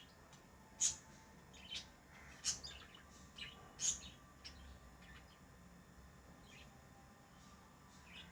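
Pet lovebirds chirping: short, sharp, high chirps about once a second for the first few seconds, then fewer and fainter ones.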